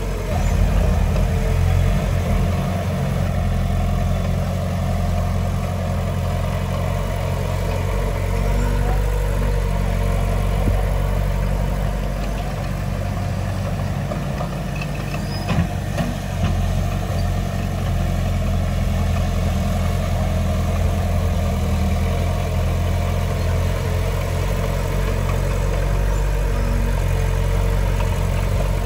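Heavy diesel engine of earthmoving machinery running steadily with a low, even note, with a couple of brief knocks about halfway through.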